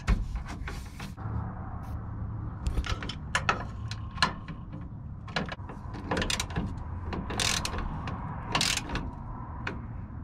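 Ratchet wrench with a 12 mm socket clicking in irregular short strokes, with scraping against the plastic EVAP canister, as the bolt holding the canister is tightened.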